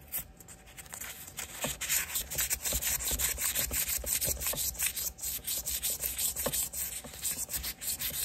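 Quick back-and-forth scrubbing against a Schrade Bear Hunter LB-5 knife's brass bolster and blade to clean off grime: a dry, scratchy rasp repeated several strokes a second, growing louder about two seconds in.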